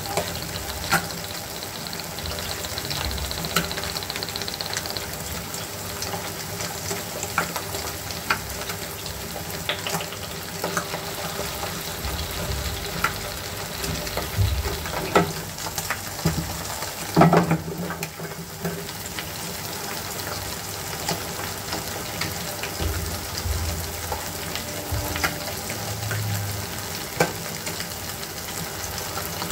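Eggs frying in oil in a nonstick pan: a steady sizzle dotted with small pops and crackles, with one louder thump a little past halfway.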